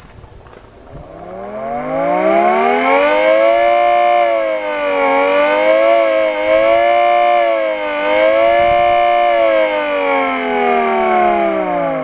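Home-built two-tone air raid siren, an electric rotor blowing air through 10-slot and 6-slot rings, sounding two pitches at once. It winds up from about a second in to a deafeningly loud howl, wavers up and down in pitch several times, then winds down near the end.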